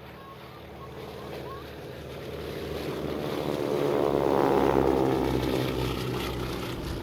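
Radial engines of two Boeing Stearman biplanes droning past in a low fly-by, growing louder to a peak about two-thirds of the way in, the pitch dropping as they pass, then fading.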